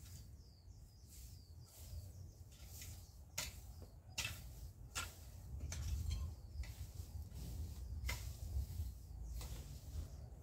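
Rake scraping through dry cut grass, short scratchy strokes roughly once a second, over a low steady rumble.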